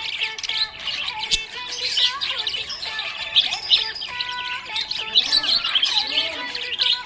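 A flock of budgerigars chirping and warbling continuously in quick, busy chatter. Faint background music with held notes plays underneath.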